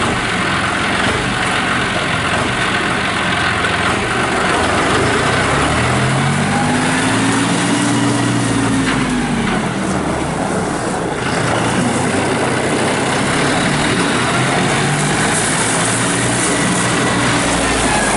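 A 2013 John Deere 5045D tractor's turbo diesel engine running steadily. Its engine speed rises and falls twice, once about six seconds in and again from about twelve seconds.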